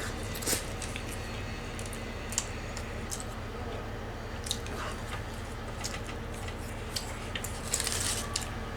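Someone chewing and biting into wood-fire roasted chicken and its skin: soft wet mouth sounds with scattered small clicks. A brief rustle comes near the end, over a steady low hum.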